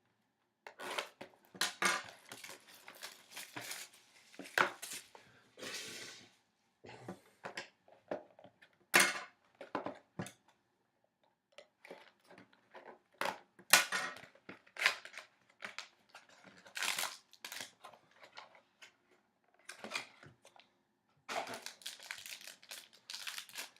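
A sealed box of hockey trading cards being opened by hand: irregular crinkling, tearing and knocking of the wrapper, cardboard and packs, with short pauses in between.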